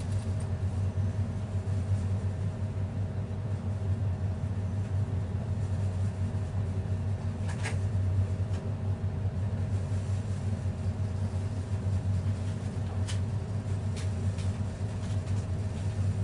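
Steady low background hum with a faint higher whine, broken by a few light clicks: one about eight seconds in and two more near the end.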